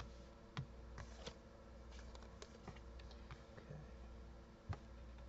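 Tarot cards being laid down and slid on a cloth-covered table: a few scattered soft taps and clicks, the loudest near the end, over a faint low hum.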